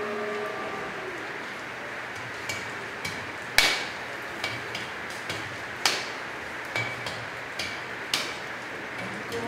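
Sharp, irregular taps or knocks of hard objects, about nine, a few with a brief high ring, the loudest about three and a half seconds in. They sound over a faint room background after a tail of soft music dies away in the first second.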